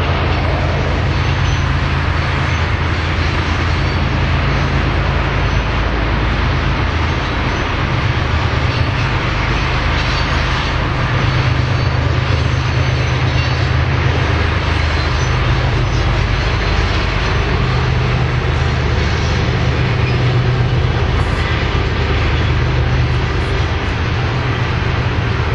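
Long freight train of tank cars rolling past at a distance: a steady rumble and hiss of wheels on rail, with a low steady drone underneath.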